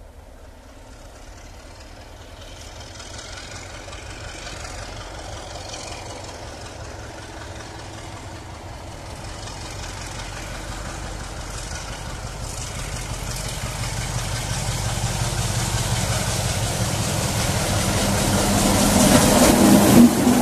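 British Rail Class 33 'Crompton' diesel locomotive 33053, its Sulzer eight-cylinder engine running, approaches along the line and grows steadily louder, loudest as it passes close by near the end.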